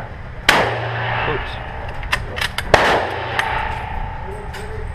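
Gunshots on an indoor firing range, each ringing off the walls: one loud shot about half a second in, a rapid string of cracks a little after two seconds ending in a loud shot, and another loud shot at the end.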